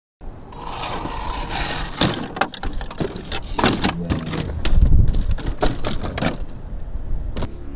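An RC scale Toyota Land Cruiser 70 series truck tumbling over sandstone rock: a quick run of knocks and clatters, a heavy thump about five seconds in, and a sharp click near the end.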